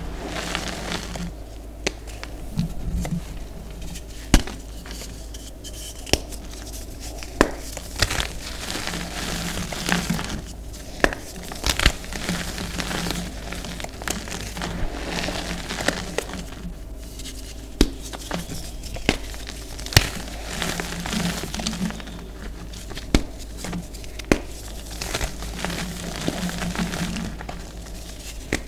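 Hands squeezing and crumbling lumps of red-dyed reformed gym chalk in loose powder: soft, dusty crunching and rustling, with sharp crackles of breaking clumps every second or two over a steady low hum.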